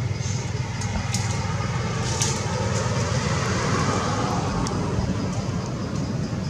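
Steady low rumble of background motor traffic, with a few short sharp crackles, like dry leaves being handled, scattered through it.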